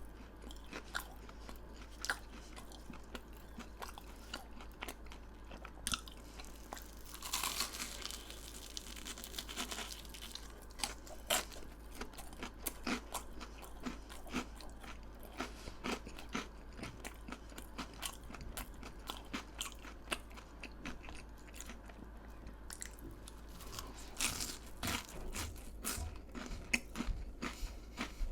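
Close-miked chewing and crunching of crisp fried food, with many small crackles. There are two longer bursts of heavy crunching, one about a quarter of the way in and one near the end.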